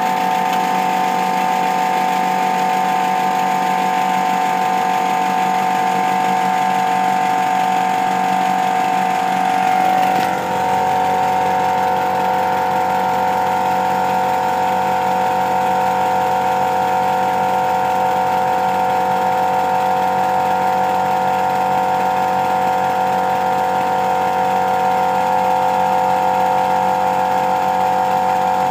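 Polly Trojan 5-inch gauge model steam locomotive chassis running on compressed air, its wheels and rods spinning freely off the track. A steady, fast mechanical running sound that shifts slightly about ten seconds in.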